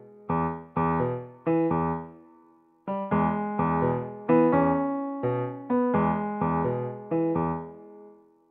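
Background music: a gentle keyboard tune of struck chords that die away, pausing briefly a little before three seconds in, then going on.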